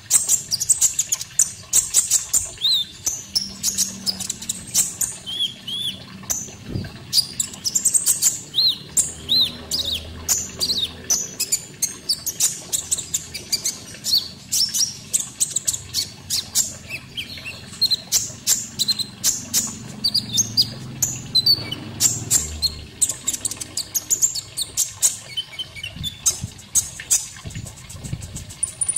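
Konin songbird masteran recording: a fast, unbroken run of sharp high chirps and short up-slurred notes, several a second, over a faint background of running water.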